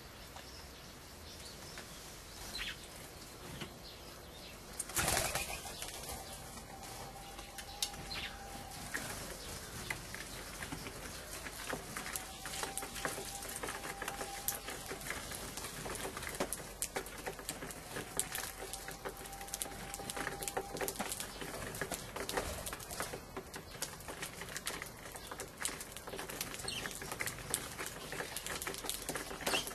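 Eurasian tree sparrows feeding on a wooden feeder table: many small pecking taps and hops on the board with occasional chirps, and a brief burst of wing flapping about five seconds in.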